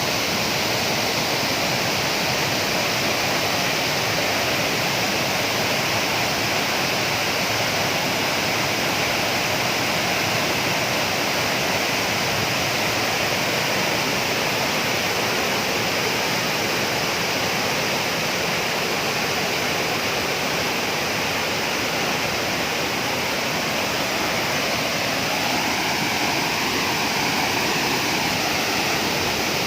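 A waterfall's water crashing down with a steady, loud rush.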